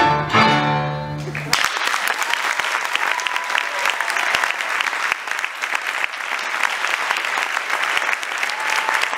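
A tango quintet's closing chord, with a held low bass note, cuts off about a second and a half in, followed by steady audience applause.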